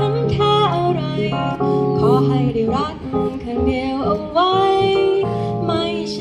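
A woman singing, accompanied live on a Yamaha electronic keyboard.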